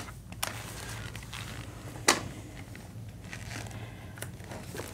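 Quiet handling of Australian polymer banknotes and taps on calculator keys: a few light clicks, the sharpest about two seconds in, over a low steady hum.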